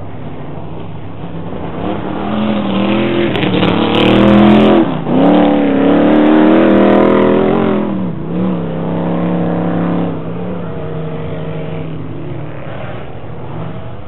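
Off-road racing vehicle engines revving hard as they pass, loudest in the middle. The engine note drops sharply and climbs back twice, a little before and a little after the midpoint.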